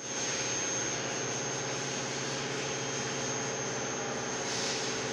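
A machine running steadily: an even whirring noise with a constant high-pitched whine over a low hum.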